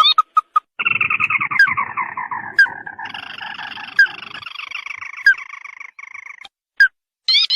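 Ruddy-breasted crake calls used as a lure recording: a long trill of rapid notes, slowly falling in pitch, cut through by sharp upward-slurred single notes about once a second, with short bursts of quick repeated notes at the start and near the end.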